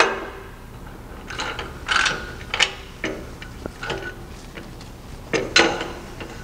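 Metal clicks and clunks from a steel front sway bar being worked by hand into its split urethane bushings and mounting blocks: a sharp knock at the start, a quick run of clicks a second or two in, and another cluster near the end.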